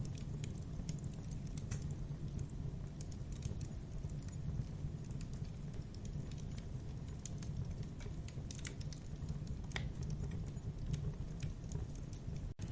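Campfire burning: a steady low rumble of the flames with irregular crackles and pops of burning wood. The sound cuts out very briefly near the end.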